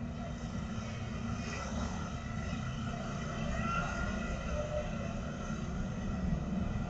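Motor scooters running past along the street, a steady low engine drone picked up by a security camera's microphone.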